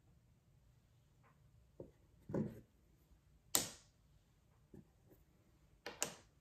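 Small pieces of tumbled stained glass clicking and tapping against a glass pane as they are set in place by hand: a few scattered taps, the sharpest about three and a half seconds in and a quick double click near the end.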